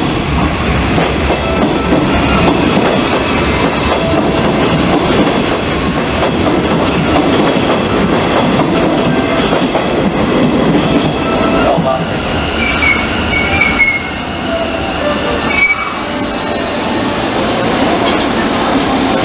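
Hanshin 5700-series local electric train pulling out and running along the platform, its wheels clattering steadily. After about twelve seconds, as it draws away, a few thin, high, wavering squeals come from the wheels.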